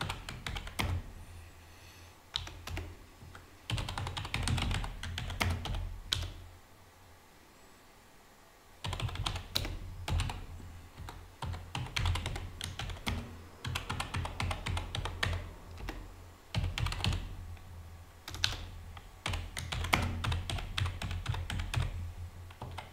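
Typing on a computer keyboard in bursts of keystrokes, with a pause of about two seconds about a third of the way in, over a low steady hum.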